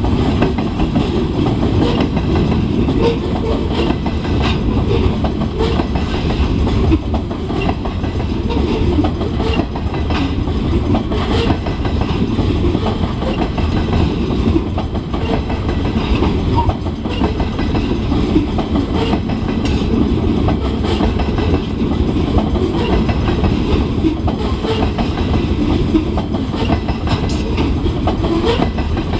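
Freight train's covered hopper cars rolling past close by: a steady rumble of steel wheels on rail, with scattered clicks and clacks as the wheels cross rail joints.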